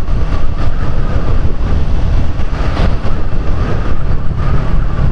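Wind rushing and buffeting over the microphone, with a steady low rumble from a Honda Biz motorcycle riding along a street.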